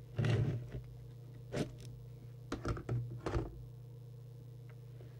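A steady low electrical hum, with a handful of brief knocks and rustles from handling on the workbench: one near the start, one about a second and a half in, and a quick cluster around three seconds in.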